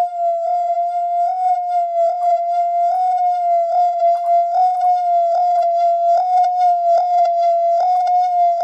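Designed sound effect played back through a Soundtoys Tremolator tremolo: one steady, high-pitched tone with a stack of overtones, its level pulsing a few times a second, with short clicks along it.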